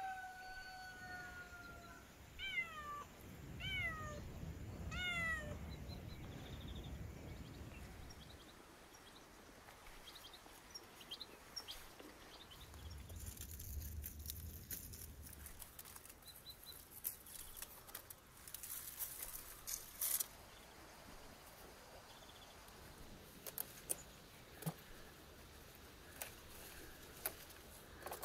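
A rooster's crow trailing off, then several short, sharply falling animal calls in three quick groups. Later, scattered sharp clicks and rustling as plants are handled while tomatoes and peppers are picked by hand.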